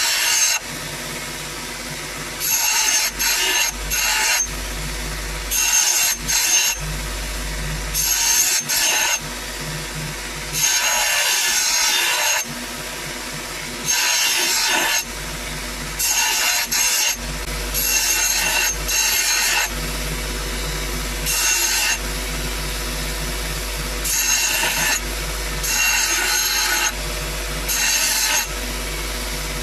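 Bench belt sander running with a steady motor hum while a steel hatchet head is pressed against the moving belt again and again, each pass a loud, harsh grinding of metal lasting half a second to two seconds, roughly every two seconds.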